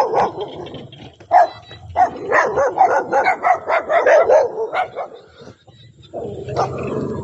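Dogs barking, with a quick run of barks in the middle.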